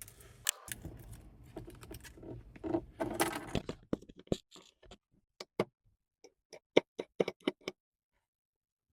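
Close rustling and clattering of small hard objects being handled, then a run of sharp, light clicks and taps from about four seconds in, as in handling small tools and phone parts during an iPhone screen replacement.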